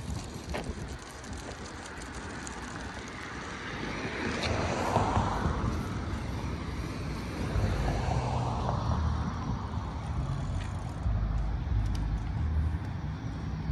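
City street traffic: cars driving past, one swelling by about five seconds in and another around eight to nine seconds, with a low rumble through the second half.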